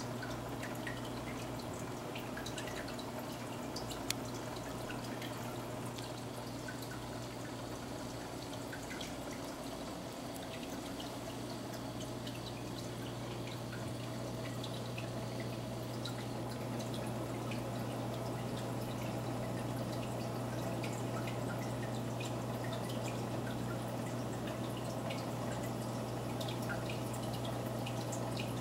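Reef aquarium running: a low steady hum, like a pump's, under a wash of trickling water with many small scattered drips and pops.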